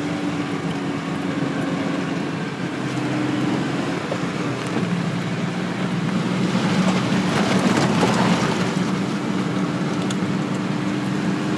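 Car engine running with road noise: a steady low hum under a noisy rush that swells about two-thirds of the way through.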